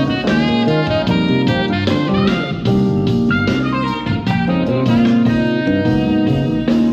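Recorded music played back through a hi-fi loudspeaker system with a large subwoofer: a continuous run of melodic notes over a strong bass line.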